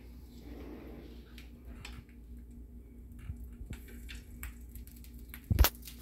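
Faint small clicks and handling noise, then one sharp crack about five and a half seconds in, as a raw egg is cracked and poured into a frying pan.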